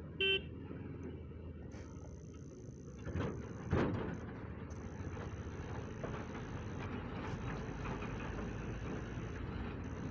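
A 125 cc motorcycle riding along a road, with its engine and road noise steady and low. A short high beep comes about a third of a second in, and two louder bursts of noise come between three and four seconds.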